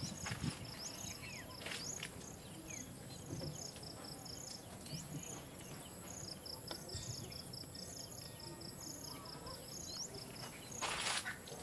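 Insects chirping in a steady pulsing rhythm, a short high chirp about three times a second, over faint outdoor background noise, with a brief rustling burst near the end.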